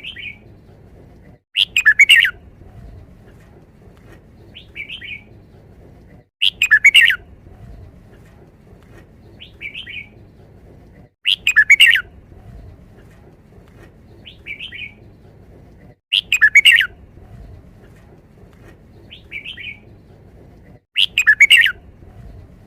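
Red-whiskered bulbul singing its five-syllable song phrase, loud and repeated about every five seconds, five times in all, with a shorter, softer call between each phrase.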